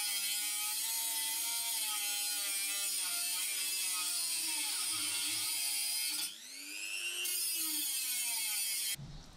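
Handheld corded electric grinder grinding at a weld spot on a steel exhaust holder: a steady, high whirring grind whose pitch wavers slightly. A little after six seconds in it eases off and its pitch sags and climbs back for about a second, then it bites in again and stops shortly before the end.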